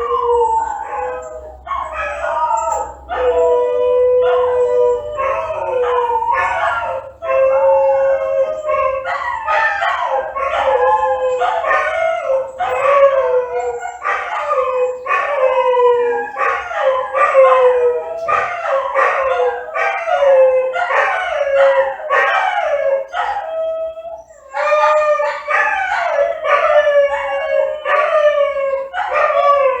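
Dogs howling and wailing, several voices overlapping: a long held low howl under many short cries that fall in pitch, repeating about twice a second. The calls break off briefly near the end, then resume.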